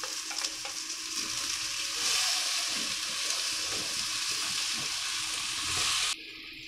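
Vegetable strips sizzling in hot oil in a non-stick wok while a spatula stirs them, with a few light scrapes and clicks. The sizzle grows louder about two seconds in and cuts off suddenly near the end.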